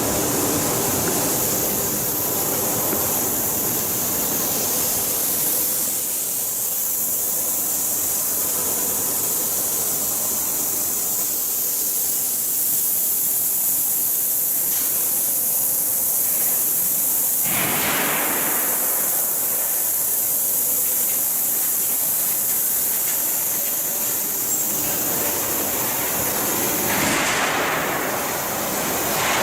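Steady machine noise of a steel-coil cut-to-length line running: a continuous hiss with a faint hum. Two louder rushing swells come through, one about two-thirds of the way in and one near the end.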